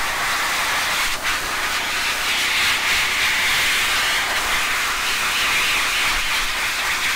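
Livestock blower running steadily, a hose nozzle blasting air into a lamb's wool to blow out dirt and debris and dry the fleece. The sound is an even, loud hiss.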